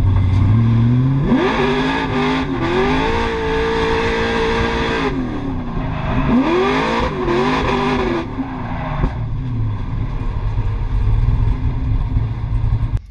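LS3 V8 engine of a Toyota Cressida drift car revving hard: its pitch climbs about a second in, holds high for a few seconds, drops, then climbs and falls again before settling.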